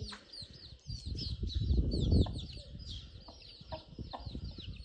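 Young chicks peeping, many short high falling peeps in quick succession, over a low rumbling noise that is heaviest in the first half.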